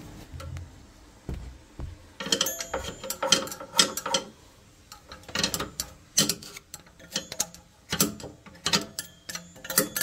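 Irregular clicking and rattling of small hard parts, coming in clusters from about two seconds in.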